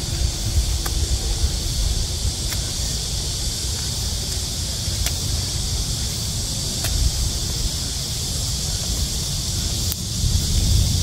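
Wind rumbling on the microphone, with leaves rustling and a handful of sharp snaps as ripe red chili peppers are picked off the plants by gloved hands.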